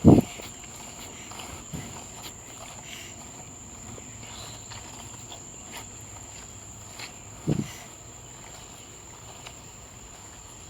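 Outdoor insect chorus, one steady high-pitched drone that does not change, with faint scattered chirps. Two dull thumps stand out, at the very start and about seven and a half seconds in.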